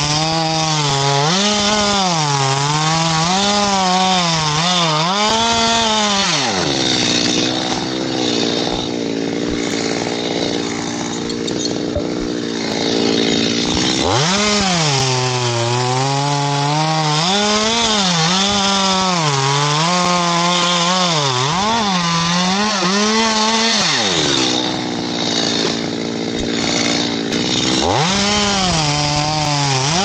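A Stihl two-stroke chainsaw run at high revs with the engine speed rising and falling unevenly, dropping back to a steady idle about seven seconds in and again around twenty-four seconds, then revving up again near the end.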